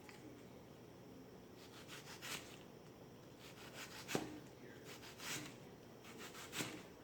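Kitchen knife slicing through an onion, several separate cuts with a rasping scrape each, and a sharp knock of the blade on the cutting board about four seconds in.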